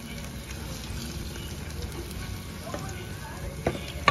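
Plantain slices with brown sugar deep-frying in hot oil, the oil sizzling steadily. A spoon turning the pieces clicks against the pan a couple of times near the end.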